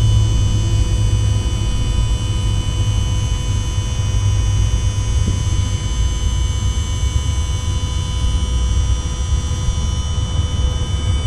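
Electric cab-tilt pump motor on a Scania R450 truck running steadily under pressure as the cab tilts forward: a low hum with a steady thin whine over it.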